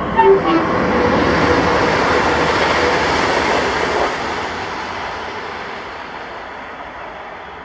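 A train passing, a steady loud noise that fades away gradually over the second half as it moves off.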